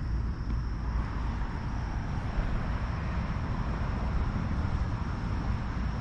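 A vehicle passing, its sound swelling over a second or two and fading away again, over a steady low rumble and a thin, steady high-pitched whine.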